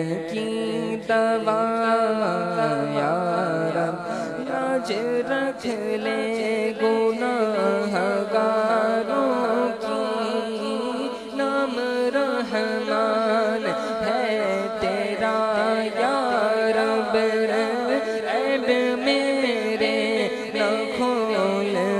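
Urdu munajat (devotional supplication) sung by a male voice in long, wavering melismatic notes over a steady low drone.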